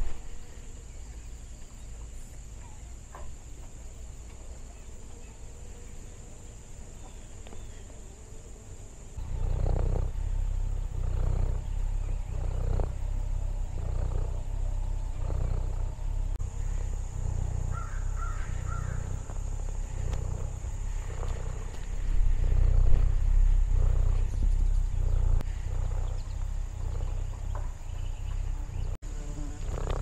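Orange tabby cat purring close up: a deep rumble that swells and fades a little under once a second with each breath. It starts about nine seconds in and is loudest a little past the middle. Insects keep up a steady high buzz behind it.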